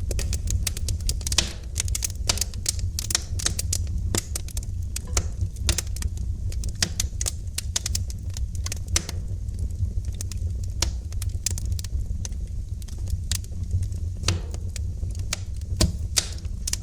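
Wood fire crackling in a fireplace: dense, irregular sharp pops and snaps over a steady low rumble.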